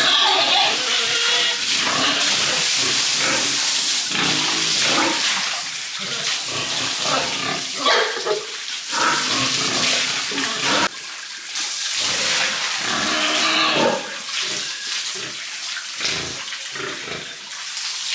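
Pigs grunting and squealing over a steady hiss of running, splashing water.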